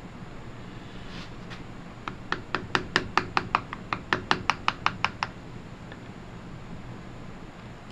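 Brass-headed hammer tapping a tack-remover screwdriver about twenty times in quick succession, about six taps a second, working a pinned data plate off a lathe apron. The taps start about two seconds in and stop a little after five seconds.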